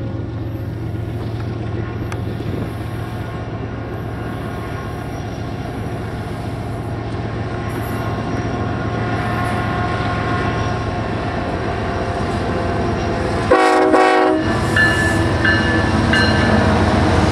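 Diesel freight locomotives rolling slowly past, their engines running with a steady low drone that grows louder as they near, the train slowing to stop for a red signal. About three-quarters of the way in the lead locomotive's horn sounds one short blast, followed by a few brief high squeals.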